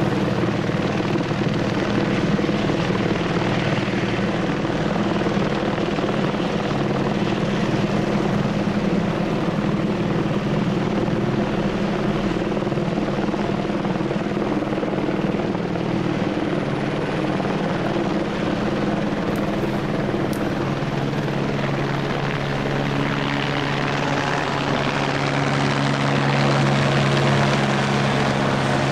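Helicopter overhead: a steady rotor and engine drone that grows a little louder near the end.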